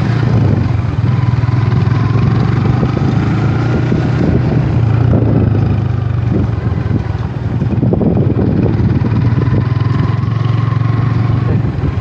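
Motorcycle engine running steadily while riding, heard from on the bike, with a brief dip in level a little past halfway.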